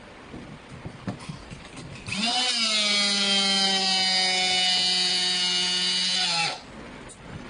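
Handheld electric rebar bender's motor starts about two seconds in and runs with a steady high whine for about four and a half seconds while bending 32 mm rebar, then cuts off sharply. A few faint clicks and knocks come before it.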